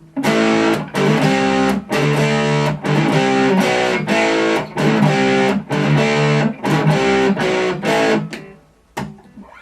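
Fender Jazzmaster HH electric guitar through distortion, on both humbuckers in the middle pickup position, strumming a repeated chord pattern. The playing stops near the end.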